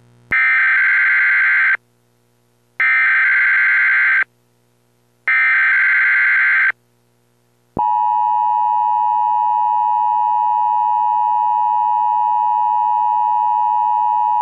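Emergency Alert System signal: three loud, even bursts of the SAME digital header tones, each about a second and a half with short gaps between, then the steady EAS attention tone starting about eight seconds in.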